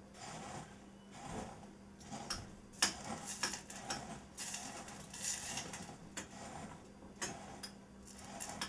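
Graham crackers being crushed by hand in a glass bowl: irregular crunching and crackling of crumbs, with scattered sharp clicks.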